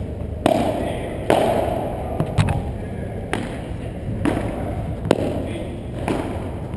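Padel ball being played in a rally: sharp racket strikes and ball bounces about once a second, each echoing in a large indoor hall.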